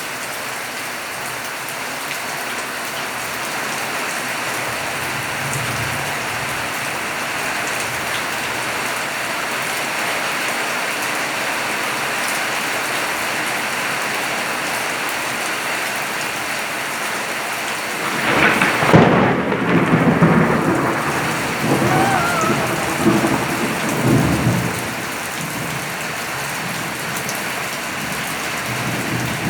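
Steady heavy rain falling. About two-thirds of the way through, a loud thunderclap breaks in and rolls on as rumbling thunder for several seconds before the rain is left alone again.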